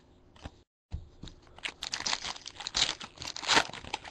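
Foil baseball card pack wrapper crinkling and tearing as it is ripped open: a dense crackle that builds from about a second in and is loudest near the end.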